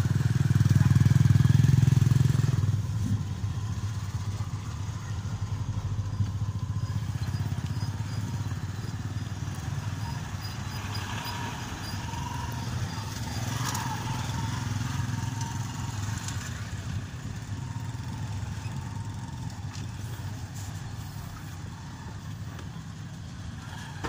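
Road traffic on a dirt road: motorcycle and vehicle engines running, loudest for the first two or three seconds, then a steadier, quieter engine hum.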